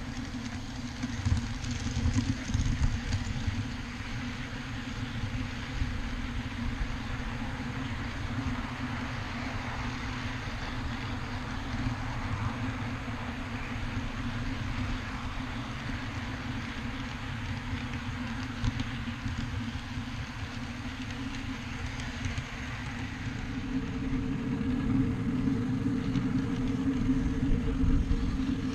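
Miniature ride-on backyard train running along its track: a steady low rumble of wheels on rail under a steady hum from the locomotive's drive. The sound grows louder over the last few seconds.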